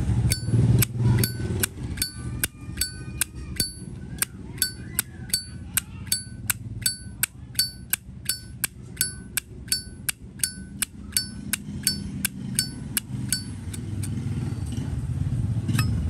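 Chrome Zippo windproof lighter, a 25th Anniversary model, its lid flicked open and snapped shut over and over. It makes about thirty sharp metallic clinks, roughly three a second, each ringing briefly on the same bright notes. The clinks stop a couple of seconds before the end, and one more comes near the end.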